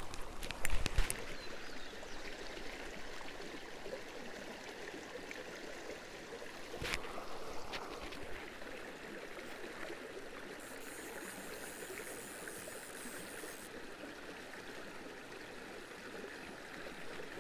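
Shallow, rocky mountain river running steadily over stones. A few knocks sound in the first second, and a single sharp click comes about seven seconds in.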